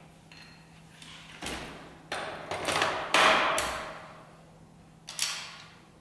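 Metal clunks and clicks of a quick-release hub-motor wheel being fitted onto a folding electric wheelchair's frame and its mount: several sharp knocks close together between about one and a half and four seconds in, then one more about five seconds in.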